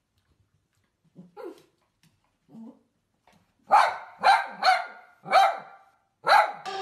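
Small fluffy dog barking: a few soft barks at first, then five loud, sharp barks in quick succession over the second half.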